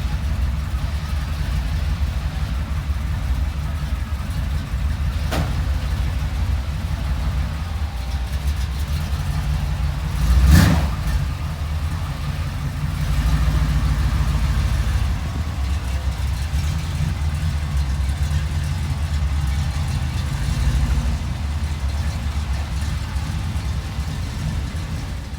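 The 461 big-block V8 in a 1978 GMC Jimmy running steadily as the truck drives, with a low, continuous rumble. A single sharp thump rings out about ten seconds in, the loudest moment.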